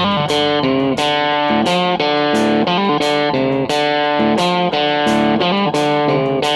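Background music: a guitar playing a steady run of notes, several to a second.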